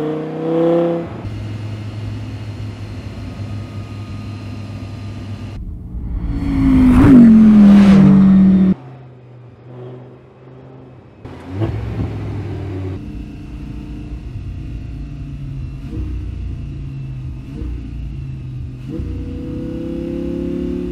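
Audi R8's naturally aspirated V10 engine, heard in a run of drive shots that change abruptly. A steady cruising hum is broken by rising revs near the start and end. The loudest moment is a pass-by about seven seconds in, with the pitch falling sharply as the car goes past.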